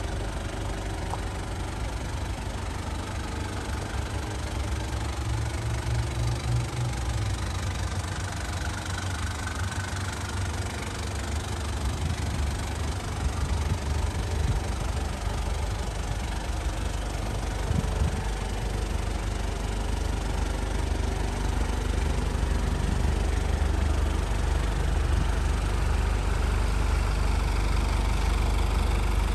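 Mazda Bongo Friendee's WL-T 2.5-litre four-cylinder turbo-diesel idling steadily, growing louder in the second half as the exhaust comes closer.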